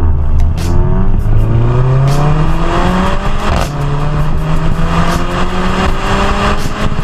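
Mercedes-AMG A45's turbocharged four-cylinder exhaust, heard close to the tailpipes, under hard acceleration: the pitch climbs for about three seconds, drops at an upshift, then climbs again.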